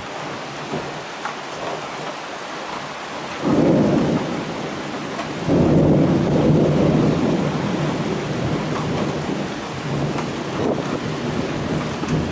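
Downpour of steady rain with thunder rolling through. A rumble breaks in suddenly about three and a half seconds in and eases briefly. It comes back louder a couple of seconds later, then slowly dies away.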